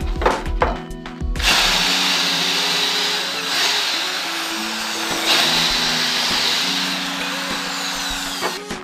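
A few knocks as a chipboard plank is handled, then a handheld electric drill starts about a second and a half in and runs steadily for about seven seconds, boring through the chipboard, stopping just before the end.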